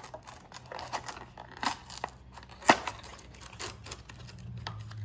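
Small cardboard box being opened by hand: the card flaps scrape and crinkle in irregular strokes, with one sharp snap of the cardboard about halfway through.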